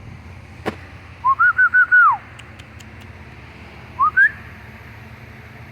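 Clear whistled notes: a quick run of five short rising notes about a second in, the last one falling away, then two more rising notes a little later. There is a sharp click just before the first run.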